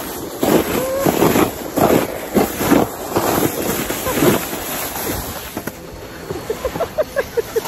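Plastic basin sled scraping and hissing over packed snow at speed, with wind buffeting the microphone; the noise dies away after about five seconds as the slide ends. Brief voice sounds near the end.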